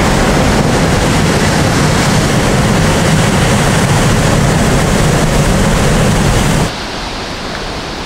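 Heavy storm waves breaking and churning over a rocky shore, a loud, steady rush of surf. Near the end it drops to a quieter, steady rush of wind and more distant surf.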